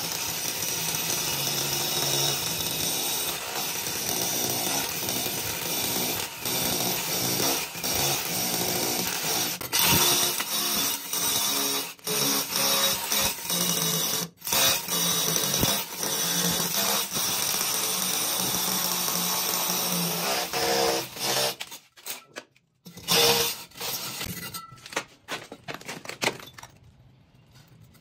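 Hukan RH2900BL 21 V cordless brushless rotary hammer boring a hole through a plastered masonry wall with a hollow core bit. It runs steadily with a few brief pauses, stops about twenty-two seconds in, then gives a few short runs before going quiet near the end.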